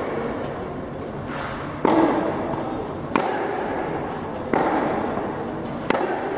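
Tennis rally: a racket strikes the ball four times, about one hit every second and a third, each hit echoing in a large indoor hall.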